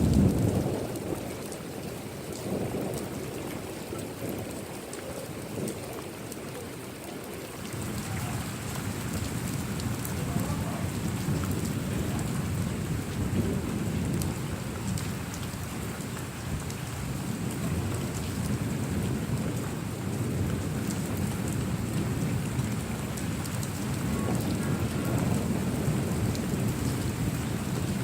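Steady rain falling, with thunder: a loud peal fades out in the first second or so, then low rolling rumbles swell and ebb under the rain through the rest.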